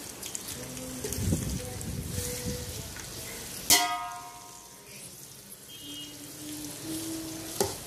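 Steel spatula stirring and scraping sliced onions frying in oil in a steel pot, with a sizzle underneath. About three and a half seconds in, the spatula strikes the pot with a sharp clank that rings briefly.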